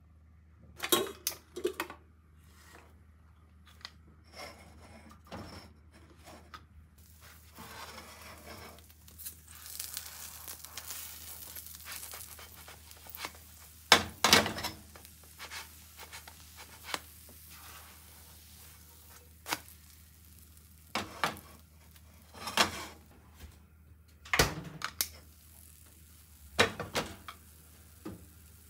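Pancake frying in a nonstick pan on a gas stove: scattered knocks and scrapes of a plastic spatula against the pan, the loudest about 14 seconds in, over a faint sizzle.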